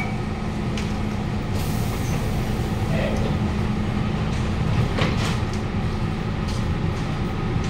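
Steady low hum inside a Siemens C651 metro car standing at the platform, with its passenger doors sliding shut and a clunk about five seconds in.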